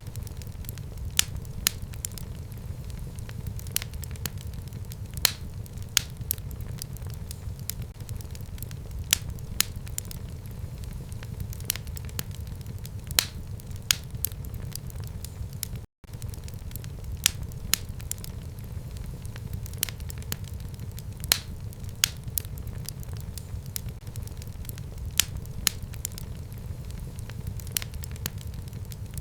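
Wood fire burning in a home fireplace: a steady low rumble of the flames with sharp crackles and pops scattered irregularly through it. The sound cuts out for an instant about halfway through.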